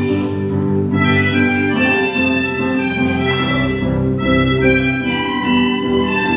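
Music played on a keyboard instrument with sustained, organ-like tones, the notes and chords changing every half second or so.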